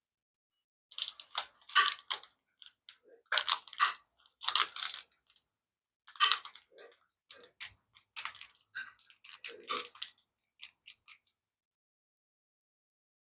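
Small plastic kit parts being handled and fitted together: a string of short clicks, rattles and scrapes that stops about eleven seconds in.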